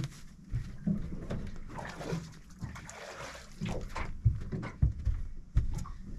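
Knocks and thumps of someone moving about in a small aluminium boat, bare feet and gear bumping the deck and hull, with a brief splashing of water a couple of seconds in.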